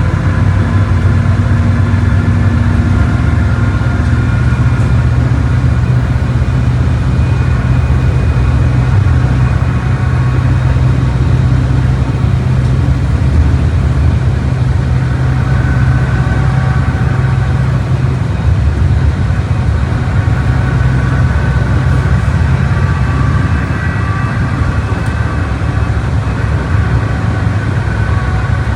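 Volkswagen Volksbus 17.230 bus's diesel engine running steadily, a low drone with faint higher whining tones above it, slightly quieter for the last few seconds.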